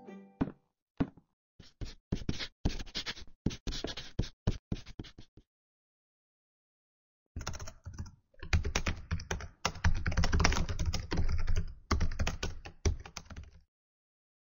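Typing on a laptop keyboard: two runs of quick keystrokes with a pause of about two seconds between them, the second run denser and louder.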